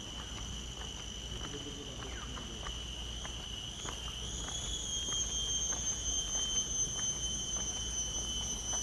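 A steady high-pitched whine over a faint hiss, growing louder about four seconds in.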